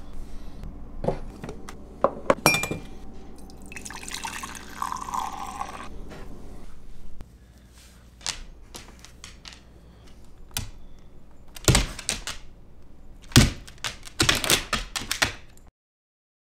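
Household clatter: knocks and thuds of things being handled, such as a coffee mug, with a couple of seconds of liquid pouring about four seconds in. A quick run of knocks near the end is followed by the sound cutting off.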